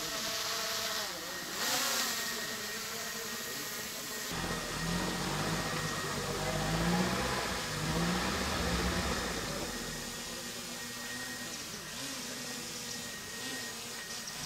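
Mitsubishi L200 pickup's engine working under load in deep mud: it revs up and down in several pulses from about four seconds in, then settles to a lower, steadier run.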